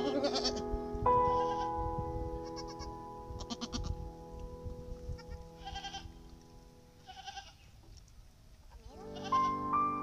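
Soft background music with long held piano-like notes that fade low in the middle, with new notes coming in near the end. Over it a goat bleats in short, high calls, about seven times.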